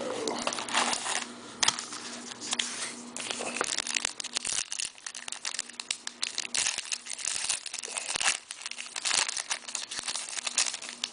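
Trading-card pack wrappers crinkling and tearing as packs are opened by hand, with the cards rustling, in irregular bursts throughout.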